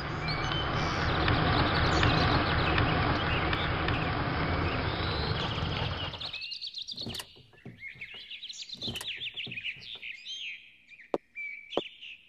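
Birds chirping and tweeting over the steady rush of an SUV driving up, which cuts off abruptly about six seconds in. The chirping carries on, broken by a few sharp clicks and knocks, the loudest near the end.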